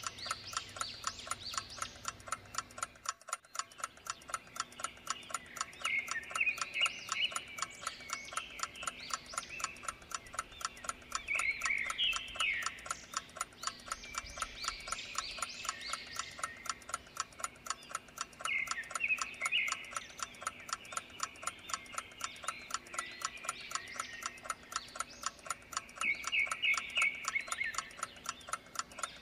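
A clock ticking steadily and evenly, the timer's background sound. Short bursts of chirping in a nature ambience come four times, every six or seven seconds.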